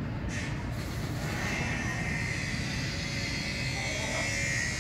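Male tortoise calling while mounted on a female during mating: a high, drawn-out squeal that wavers in pitch, starting about a second and a half in, over a steady low background hum.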